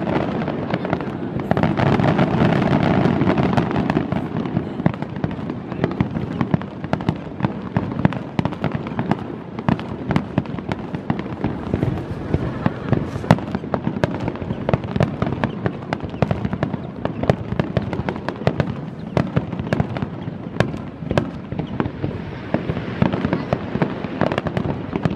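Fireworks finale: many aerial shells bursting in quick succession, a continuous crackle of sharp reports that is loudest over the first few seconds.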